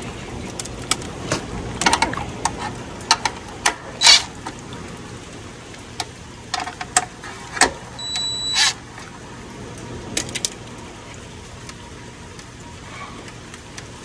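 Clicks and knocks of metal parts and screws being handled on an air-conditioner condenser, then, about two-thirds of the way through, a brief run of a cordless drill with a steady whine, driving a screw to fasten the new capacitor's mounting strap.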